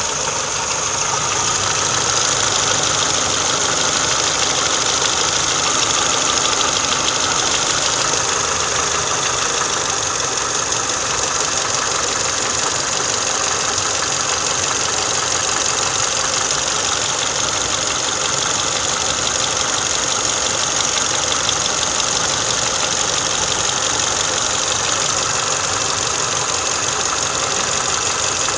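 Car engine idling steadily on fresh Motul 5W-30 oil, the oil change the owner credits with ending its valve tapping.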